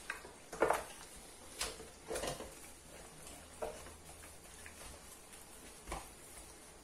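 Soft wet squelches and slaps of a plastic-gloved hand massaging marinade into a whole raw chicken in a stainless steel bowl: a handful of short sounds at uneven intervals.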